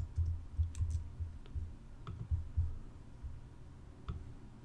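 Scattered clicks of a computer keyboard and mouse: a few sharp clicks over soft low thuds.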